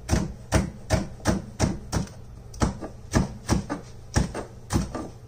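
Chef's knife dicing a green sweet pepper on a wooden cutting board: steady, even knocks of the blade through the pepper onto the board, about two to three a second.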